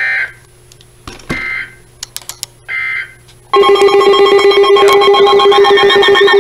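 Three short bursts of digital data tone, about a second apart, typical of the EAS/SAME end-of-message code sent after a weather alert, with a few sharp clicks between them. About three and a half seconds in, a loud synthesizer tune like a ringtone starts and keeps going.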